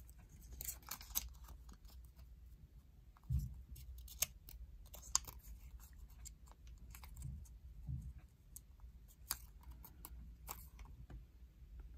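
Colored origami paper being folded and creased by hand: faint rustling with scattered crisp crackles and clicks of the paper, and a few soft low thumps, the first about a third of the way in.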